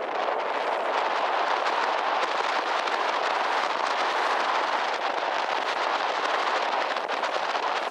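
Steady rush of wind buffeting the microphone on the deck of a moving lake sightseeing boat, with a fine crackle throughout.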